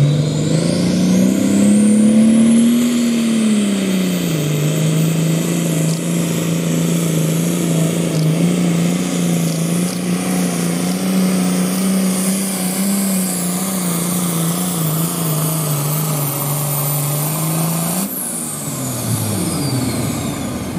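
Turbocharged diesel pulling tractor at full throttle, hauling the weight-transfer sled down the track. The engine revs up over the first few seconds, then runs hard and steady under load with a high turbo whistle. About 18 seconds in the throttle is cut, and the engine and whistle wind down.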